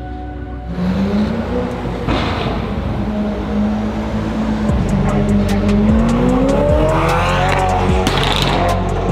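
Supercar engines pulling away at low revs, then a Ferrari's engine revving up in a rising sweep about seven seconds in, over background music with a beat.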